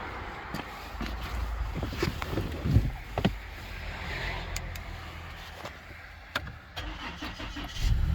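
2015 Ford Taurus engine being started, with scattered clicks and knocks at first. Near the end it catches and settles into a steady run, now that the fuel pump driver module has been replaced and fuel is reaching the engine again.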